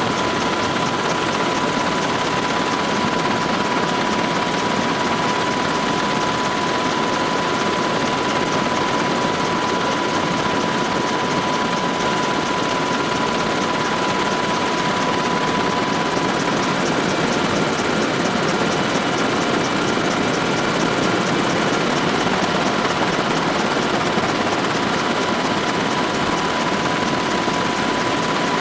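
Military helicopter in flight, heard from inside the cabin: a loud, steady rotor and engine noise with a constant whine.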